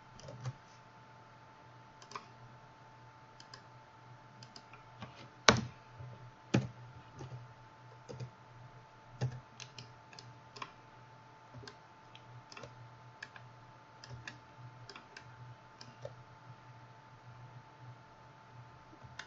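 Scattered, irregular clicks of a computer mouse and keyboard, one louder click about five and a half seconds in, over a faint steady hum.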